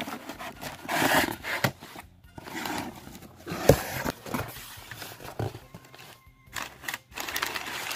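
Cardboard shipping box being handled and its flaps opened: irregular scraping and rustling of cardboard, with one sharp knock a little before four seconds in.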